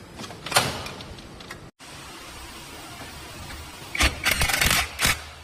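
Metal garage door hardware clattering and knocking as it is handled and fitted to the door panel: a sharp knock about half a second in, then a loud run of rattling knocks near the end.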